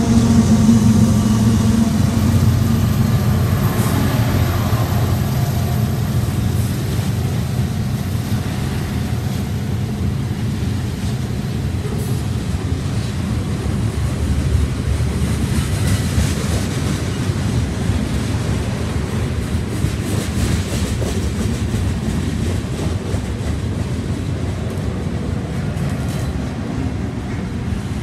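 Union Pacific diesel freight locomotives passing close by, their engine drone loudest at first and fading over the first few seconds. A long string of freight cars then rolls past: a steady rumble and clatter of steel wheels on rail.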